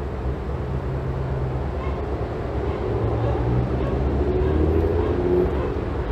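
Low engine rumble with a steady hum, growing louder from about three seconds in and easing near the end.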